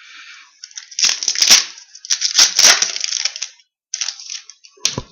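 Crinkling and rustling as hockey card packs and cards are handled, in two bursts with scattered clicks and a sharp knock near the end.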